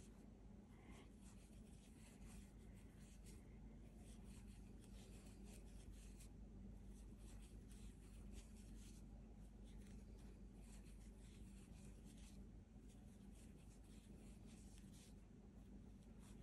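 Very faint rustling and scratching of acrylic DK yarn being drawn through stitches with a 4 mm crochet hook, in short clusters of soft scratches. A low steady hum sits underneath.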